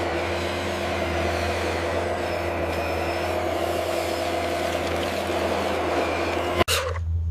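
Steady motor hum of a radio-controlled construction machine, with a strong low drone and a few steady higher tones; it cuts out abruptly near the end and a different noisier sound follows.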